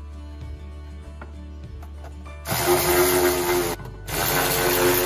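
Cordless electric ratchet running in two bursts, each a second or more long with a brief pause between, starting about halfway in: a steady motor whine as it drives the battery mounting bolts tight.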